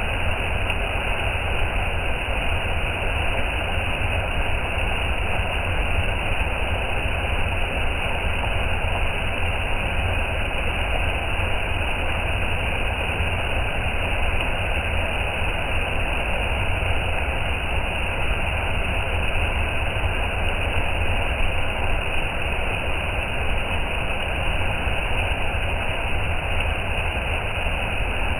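Waterfall rushing steadily: an even, unbroken roar of falling water with a deep low rumble.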